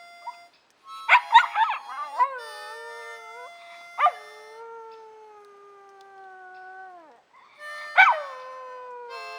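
A dog howling to harmonica chords: long howls that start sharply high, slide down and hold a steady note, about a second in, at about four seconds (the longest, held for about three seconds) and again near the end.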